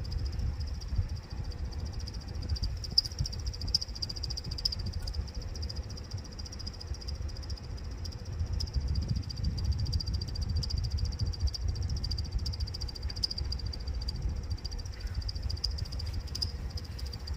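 Indoor unit of a Hitachi split air conditioner running, its blower wheel giving off a continuous high-pitched chirping squeal over a low airflow rumble: the abnormal 'bird-call' noise of a faulty blower wheel.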